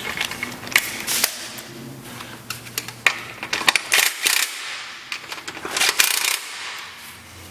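Irregular sharp metallic clicks and clinks of a socket tool and the pillion pad's 10 mm mounting bolts being started into the fender, several in quick clusters.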